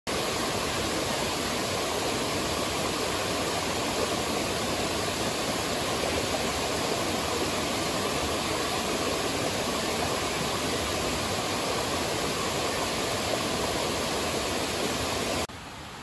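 Forest stream rushing over small cascades into a pool, a steady, even rush of water. It drops away sharply near the end.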